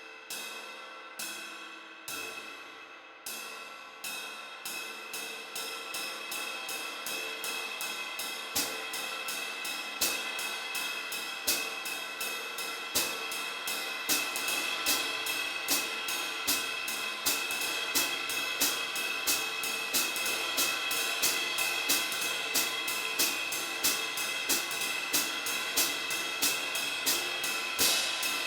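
20-inch Zildjian Oriental Crash of Doom, a china-type effects cymbal, being struck repeatedly. Single hits about a second apart, each left to ring, quicken after a few seconds into a steady run of several strikes a second that builds into a continuous, bright, trashy wash with regular accents.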